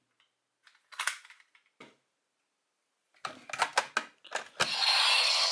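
Hard plastic toy parts clicking and clattering as they are handled and fitted together, in short scattered bursts. Near the end the toy's electronic audio starts playing through its small speaker.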